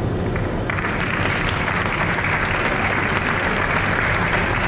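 Audience applauding. The clapping starts under a second in and carries on steadily as a dense patter of many hands.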